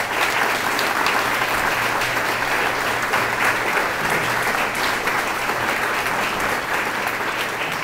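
An audience applauding, a loud, steady round of clapping that greets a speaker who has just been introduced.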